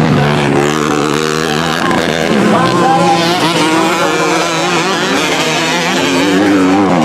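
Motocross motorcycle engines on a dirt track, several running at once, their pitch rising and falling as the riders work the throttle through the jumps.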